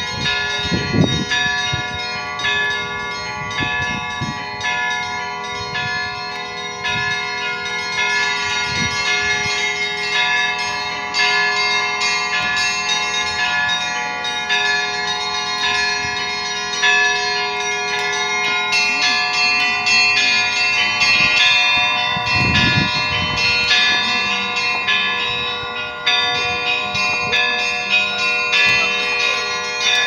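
Russian Orthodox church bells rung from the bell tower in a festive peal after the service: many bells struck in a quick, overlapping rhythm, bright high bells ringing over sustained lower tones without a break.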